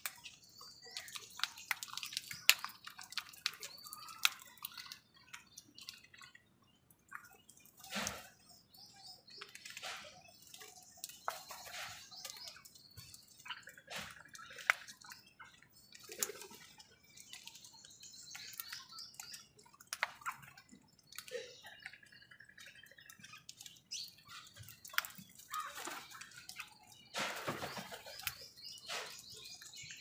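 House crows pecking at food in a plastic bowl and on concrete: many quick, irregular taps and clicks, with bird chirps mixed in.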